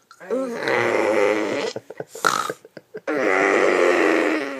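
A child imitating a parent's snoring: two long, loud, exaggerated snores, with a short sharp breath between them.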